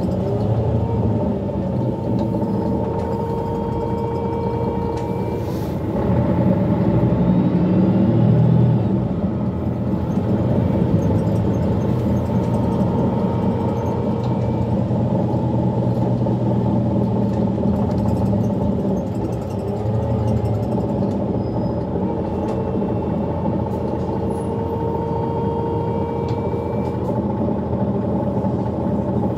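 Mercedes-Benz Citaro G articulated bus with a Voith automatic gearbox, heard from inside while driving: a steady engine and drivetrain hum with road noise and a whine that comes and goes. The sound swells for a few seconds about six seconds in.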